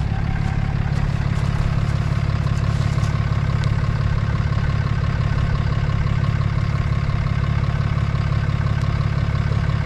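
Ram 2500 pickup's engine idling steadily with an even low hum, a few light clicks over the first three seconds.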